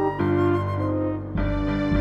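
Slow background soundtrack music of long held notes, with a deeper bass note coming in about halfway through.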